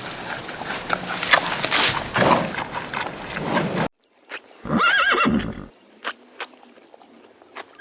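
A dense, rough scraping noise cuts off suddenly, and about a second later a horse whinnies once with a wavering pitch. A few sharp hoof clops follow.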